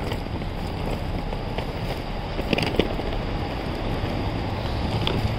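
Busy town street ambience: a steady wash of traffic and street noise, with a few short sharp clicks about halfway through.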